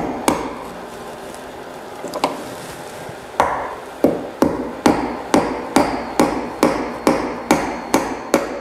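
Hammer driving decorative upholstery tacks through braided trim into an oak chair frame. Two strikes come at the start, then a couple of light taps, then a steady run of about a dozen sharp strikes, a little over two a second.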